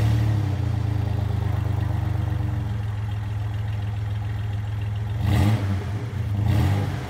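Stock Ram pickup's V6 engine idling steadily at the tailpipe just after a cold start, with two brief louder surges about five and six and a half seconds in.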